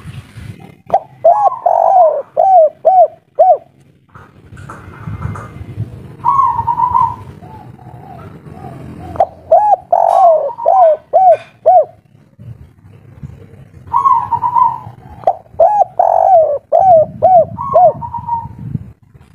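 Spotted dove cooing: three runs of quick, arched coos, with single higher-pitched coos between the runs. A low rumble sits underneath at times.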